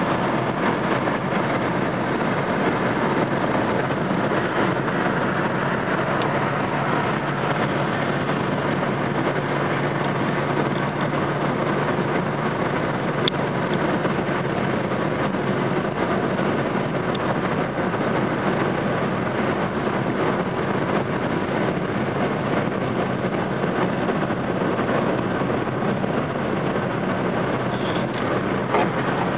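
Steady road noise heard inside a car's cabin at highway speed: an even rush of tyre and engine noise.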